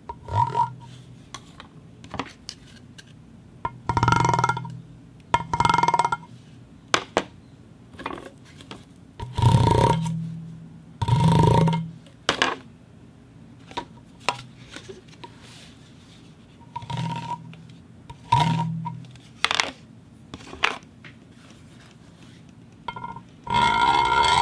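Corrugated pipe rubbed against a metal plate in a series of separate scraping strokes, each about half a second to a second and a half long, with a resonant hum. Short sharp clicks fall between the strokes, and a longer, denser scrape begins near the end.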